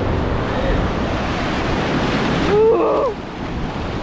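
Ocean surf washing and breaking in the shallows, a loud, even rush of foamy water. It cuts off abruptly about two and a half seconds in, leaving a quieter wash. A brief vocal cry sounds at the change.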